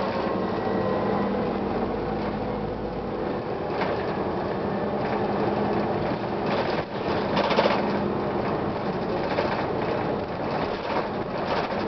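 Gillig Phantom transit bus running with its Series 50 diesel engine and Allison transmission. A steady engine hum fades about three seconds in, leaving a rumbling ride noise with several short loud bursts of noise.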